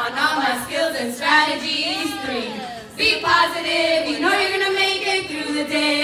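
A group of women singing a song together into handheld microphones, with held notes and a pitch that rises and falls about two seconds in.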